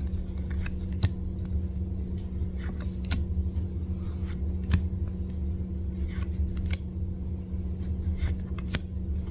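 Pokémon trading cards and booster packs being handled: scattered sharp clicks and rustles over a steady low hum.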